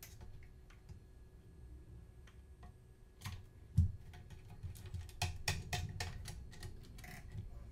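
Irregular light clicks and taps of small plastic camera parts being handled and fitted together, with one dull thump a little under four seconds in and a quick run of clicks between about five and seven seconds.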